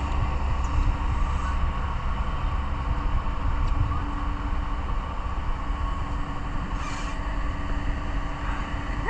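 A steady, low mechanical drone with a constant hum running through it, and one short hiss late on.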